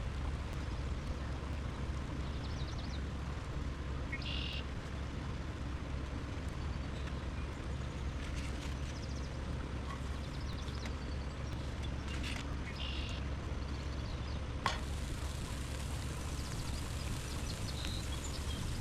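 Short bird chirps, five or six scattered calls, over a steady low rushing background. A single sharp click about three quarters through.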